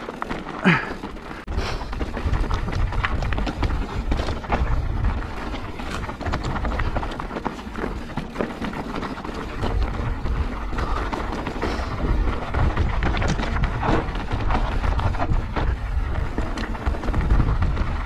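Mountain bike descending a rough, rocky trail: tyres and bike clattering over stones in a constant run of knocks and rattles, with wind rumbling on the microphone.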